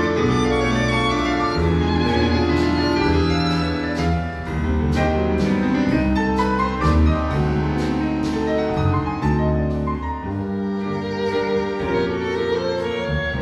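Instrumental ensemble playing a purely instrumental interlude between a song's sung verses: a melody of held notes over a sustained accompaniment.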